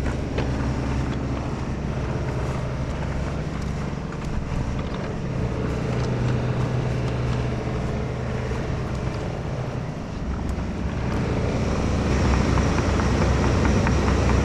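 Takeuchi tracked excavator's diesel engine running steadily as the machine tracks along the ground, growing louder toward the end as it comes closer.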